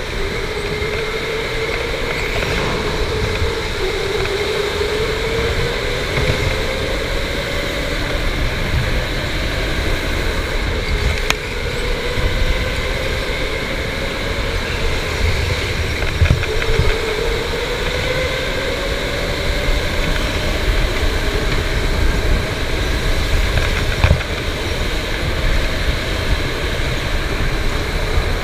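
Electric go-kart's motor whining over a steady rumble of tyres and chassis on a smooth concrete floor. The whine rises slowly in pitch twice as the kart speeds up out of the corners.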